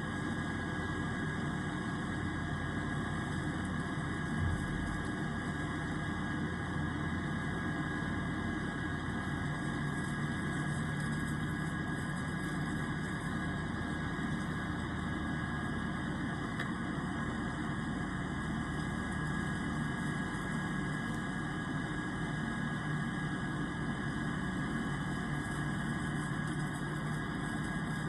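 Airplane engine noise: a steady, unbroken drone with a thin, steady high whine over it.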